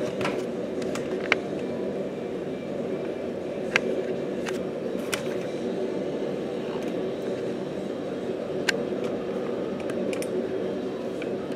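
Steady low background hum with a few sharp clicks and taps from handling the camera.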